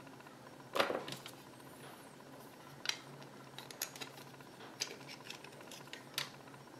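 White 3D-printed plastic tripod parts clicking and knocking against each other as they are handled and fitted together: a scatter of light, sharp clicks, the loudest about a second in.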